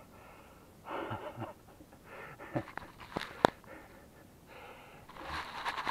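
A man's heavy, hissing breaths close to the microphone, several in and out, as he recovers from the shock of immersion in cold lake water. A few sharp clicks come about halfway through.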